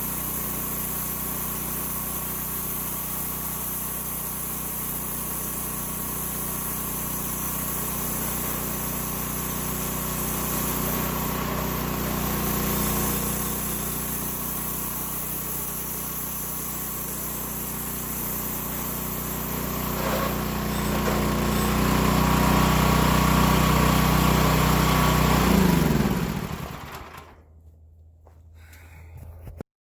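Small gasoline engine of a homemade bandsaw sawmill running steadily, getting louder from about twenty seconds in, then shut off near the end, its pitch dropping as it winds down.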